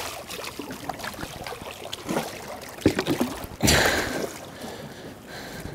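Yellowtail kingfish thrashing and splashing at the water's surface beside the boat as it is grabbed by hand and hauled out, with a louder rush of splashing water about three and a half seconds in.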